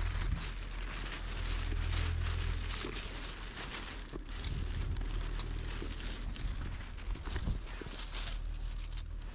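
Thin plastic rubbish bag rustling and crinkling as it is handled, in a run of short crackles, over a steady low rumble.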